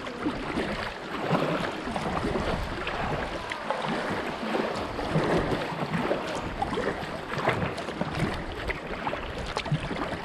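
River water splashing and rushing around a kayak in moving current after a run through rapids: a continuous, uneven wash of small splashes.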